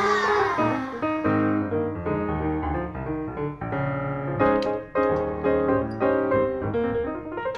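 Background piano music, its notes and chords changing every fraction of a second, with a falling glide of notes in the first second.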